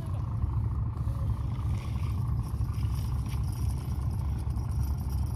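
Wind buffeting the microphone: a steady, fluttering low rumble with a few faint ticks.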